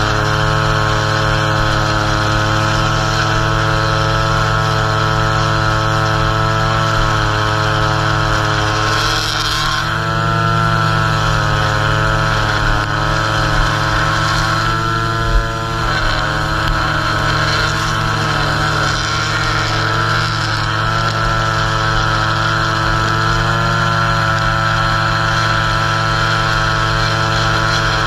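Gas string trimmer engine held at high revs, its line edging grass along a concrete curb. The pitch dips briefly twice as the head meets heavier growth.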